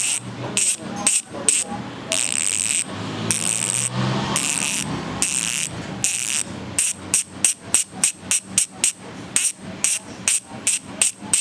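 Weapon Predator rear bicycle hub with six pawls, its freehub spun by hand: a bright ratcheting buzz in bursts during the first half, then separate clicks at about three a second as it turns more slowly.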